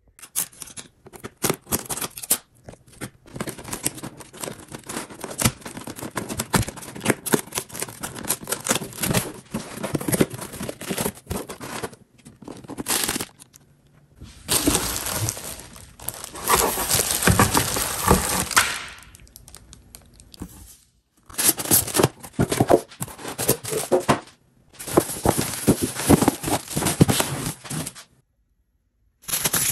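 Cardboard box and plastic packaging being opened and handled: tearing, crinkling and crackling in several stretches broken by brief pauses.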